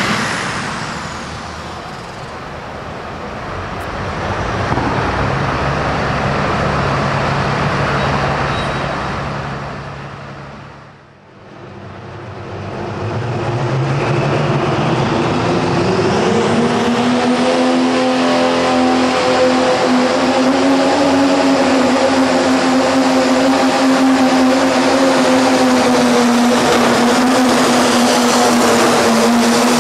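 Super stock diesel pulling tractors at full throttle. The first tractor's engine fades as it pulls away. After a break, a second tractor's engine winds up with a rising whine and holds a steady high-revving drone for the rest of its pull.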